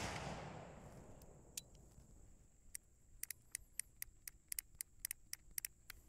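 The echo of a black-powder revolver shot dies away over the first second. A run of small, sharp metallic clicks follows, several a second, as the .44 Armi San Paolo 1860 Army Colt replica's cylinder and action are worked by hand.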